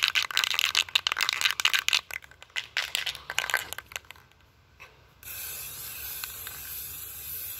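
Aerosol spray paint can being shaken, its mixing ball rattling in quick clicks for about four seconds. About five seconds in, a steady hiss starts as paint sprays from the can onto water for hydro dipping.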